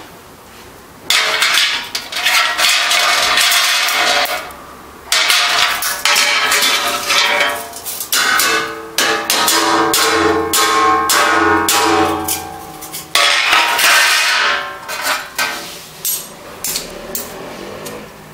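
Metal utensil scraping and knocking on a metal baking tray, working burnt-on cabbage loose in a run of strokes, with a few seconds of pitched ringing partway through.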